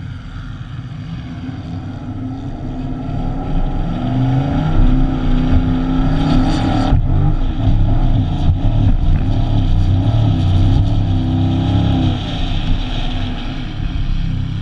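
Chevrolet Silverado's 6.2-litre V8 working hard as the truck climbs a steep sand dune. It gets louder over the first few seconds, dips for an instant about halfway, and eases off near the end as the truck crests the top.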